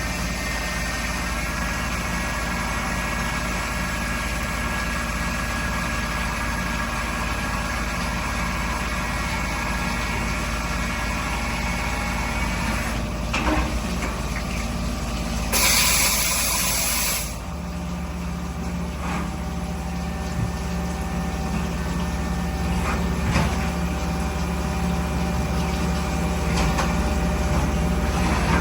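CNC machining center set up for turning and milling, running through a cut: a steady machine hum with several held tones. A loud hiss lasts under two seconds about sixteen seconds in, and right after it the low hum shifts to a new pitch.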